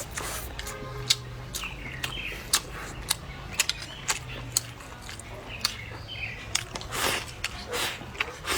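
Close-up chewing with a string of sharp crunches, the crisp bite of pickled sour-spicy Chinese shallot bulbs eaten with rice. A few short bird chirps sound faintly behind it.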